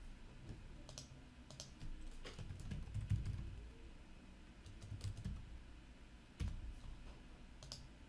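Faint typing on a computer keyboard: scattered, irregular key clicks.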